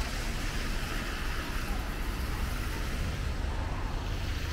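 Steady street noise from road traffic, with a low rumble and an even hiss.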